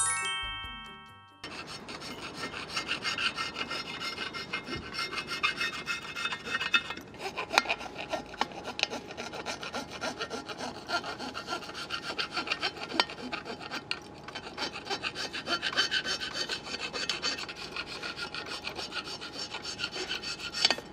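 A short channel-logo jingle, then a hand scraper scraping old gasket residue off the mating surface of an aluminium engine cylinder head, metal blade rasping on aluminium in quick uneven strokes.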